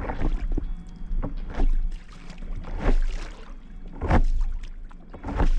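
Stand-up paddle board paddle strokes through lake water: the blade dips and pulls in a swishing surge a little more than once a second, about five strokes in all, with water lapping at the board's nose and low wind rumble on the microphone.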